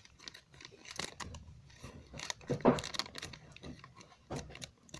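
Packaging being handled and opened, with scattered crinkles, rustles and small clicks and a slightly louder rustle a little past halfway.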